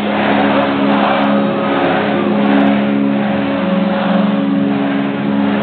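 A loud, sustained low drone chord through a concert PA, its notes shifting about halfway through, over a crowd cheering.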